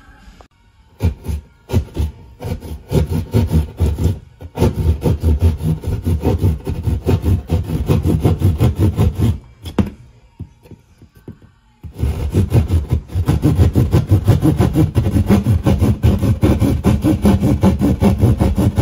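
Narrow hand-held jab saw cutting through a textured wall in quick back-and-forth strokes. It stops for about two seconds near the middle, then starts sawing again.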